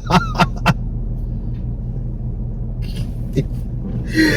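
Steady low rumble of a car, heard from inside the cabin, with a few sharp clicks in the first second.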